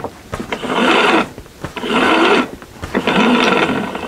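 Braided rope being pulled hand over hand through stainless-steel davit pulley blocks, a rasping rub of line running through the sheaves and across the tabletop. There are three long pulls, about one every second and a half.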